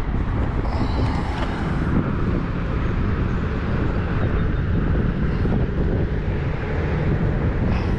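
Steady low rumbling outdoor background noise with no clear rhythm or pitch.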